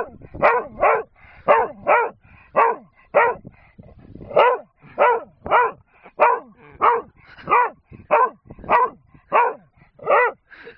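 Large black dog barking in a steady run of short, pitched barks, about one and a half a second. It is demand barking: the dog wants a wooden gun that the man has.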